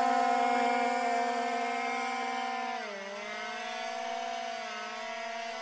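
Electric motors and propellers of an XK X420 foam VTOL RC plane whining steadily as it climbs and hovers. The whine fades as the plane gains height, and its pitch drops about three seconds in as the throttle eases, then settles.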